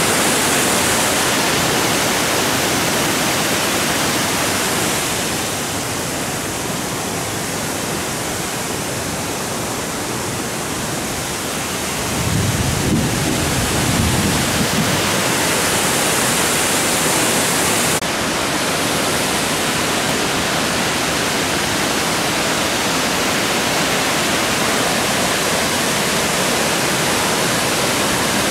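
Steady rush of a waterfall and cascading river water. About twelve seconds in, a low rumble swells for a few seconds, and the sound changes abruptly at about eighteen seconds.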